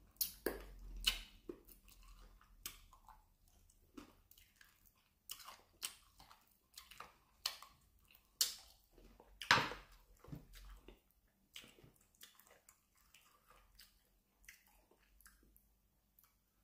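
Close-up mouth sounds of a man chewing meat that he eats with his fingers: chewing with wet smacks at irregular intervals, the loudest about a second in and near ten seconds in, thinning out toward the end.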